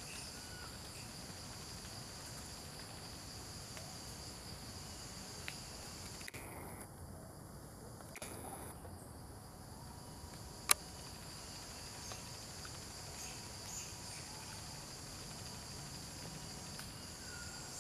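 Steady, high-pitched chorus of insects such as crickets, running unbroken. A single sharp click stands out about eleven seconds in.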